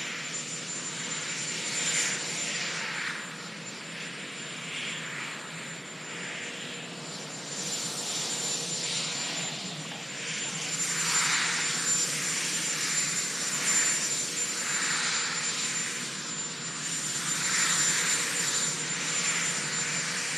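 Marine One, a Sikorsky VH-3D Sea King helicopter, running its turbine engines on the ground: a steady high-pitched turbine whine over a continuous rushing engine noise that swells and fades every few seconds.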